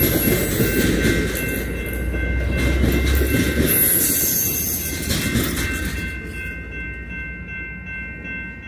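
Amtrak California bilevel passenger cars rolling past on the rails with a rumble and rattle of wheels. The sound fades away after the last car clears, while a few steady high ringing tones linger.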